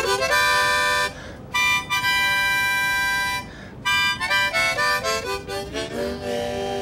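Harmonica playing: a short chord, then a chord held for about two seconds, then a run of quick short notes ending on a lower held note.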